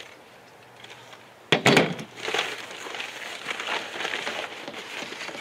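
A few sharp clanks about a second and a half in as a steel disc-brake caliper bracket is set down on a table, followed by the rustle and crinkle of packing material in the parts box.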